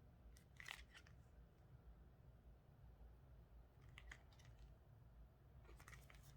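Near silence with a few faint handling sounds of small card holders being picked up and turned over: soft clicks and rustles under a second in, around four seconds, and near the end, over a low steady hum.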